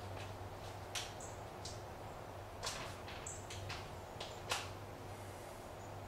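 A handful of faint, irregular clicks and light taps from hand tools being handled, over a low steady hum.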